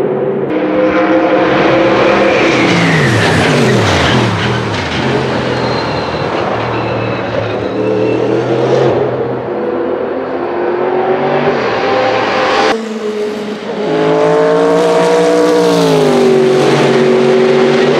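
Sauber Mercedes C11's twin-turbo Mercedes M119 V8 racing past, its engine note falling in pitch as it goes by. The sound breaks off abruptly about two-thirds of the way through, then the V8 comes back loud, its pitch rising and then falling.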